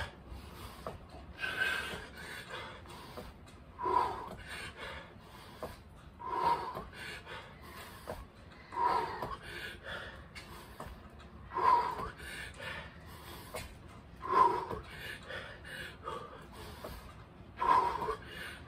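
A man breathing hard through a set of push-up jacks: a sharp, forceful exhale about every two and a half seconds, with quieter panting between.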